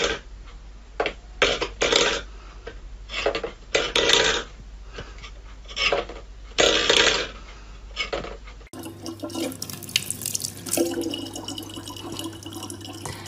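A metal food bowl clatters and scrapes on a wooden floor under a cat's paw, in about eight separate short bursts. About nine seconds in, this gives way to a tap running a thin, steady stream of water into a plastic bottle.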